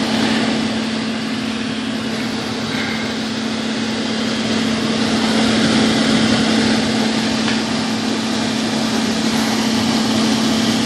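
Air-conditioning service equipment running steadily, with a constant hum over an even mechanical whir.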